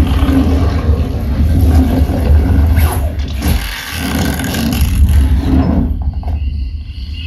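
Movie-trailer soundtrack played through a home-theatre soundbar in a bass test: a dense, loud rumble with heavy deep bass, thinning out about six seconds in.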